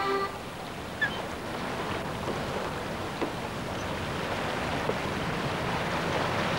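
Steady rush of wind and sea waves, with a faint knock about a second in and another about three seconds in.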